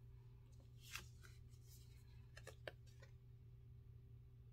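Faint handling of oracle cards: a few soft slides and taps as a card is moved and laid on a wooden table, the clearest about a second in, over a low steady hum.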